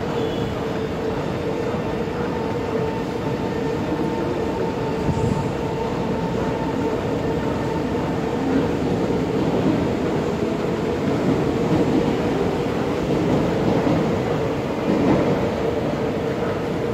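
MRT train noise in an elevated metro station: rail rumble with a steady electrical hum throughout.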